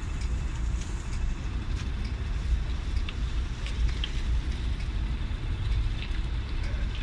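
A heritage tram running, a steady low rumble with a few faint clicks and rattles.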